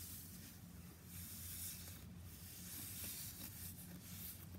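Soft rubbing and hissing as hands squeeze and stretch a sand-filled squishy toy, coming and going in short stretches over a steady low hum.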